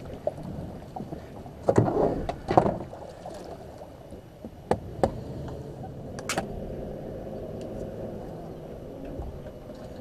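Kayak being paddled on open water, with a steady low wash of water noise and several sharp knocks, a cluster of them about two seconds in and a few more around five and six seconds.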